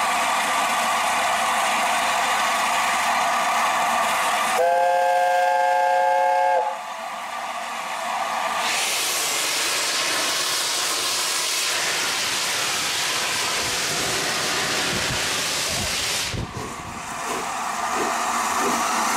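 LNER Class A4 Pacific No. 60007 Sir Nigel Gresley's chime whistle sounds once, for about two seconds, a little over four seconds in, over a steady hiss of steam. From about halfway there is a loud rush of escaping steam, with a slow regular beat coming in near the end.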